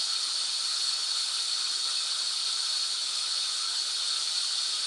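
Steady white-noise hiss, an even, unbroken rush weighted toward the high end, with a faint brighter band in the upper middle.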